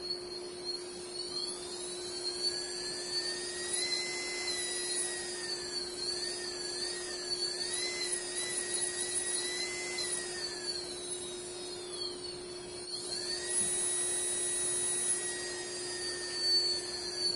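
Small brushless outrunner motor driven by a SimonK-flashed 20 A ESC under servo-tester throttle, spinning up as a test after reflashing. Its electric whine rises in pitch over the first few seconds, wavers, drops away about two-thirds of the way through, then rises again and falls off near the end, over a steady low hum.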